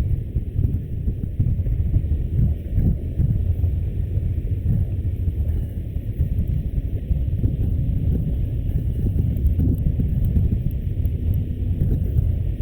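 Wind buffeting a GoPro's microphone while cycling, heard as a steady, fluttering low rumble with no clear tones.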